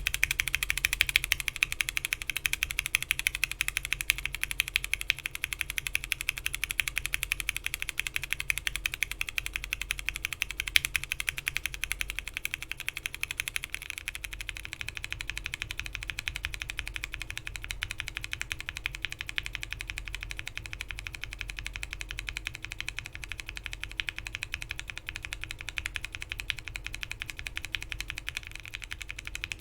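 Continuous fast typing on a custom mechanical keyboard with Gateron Milky Yellow linear switches (67 g springs, FR4 plate, PBT keycaps): a dense stream of key clacks. The switches are stock at first and lubed from about fifteen seconds in, where the strikes get quieter.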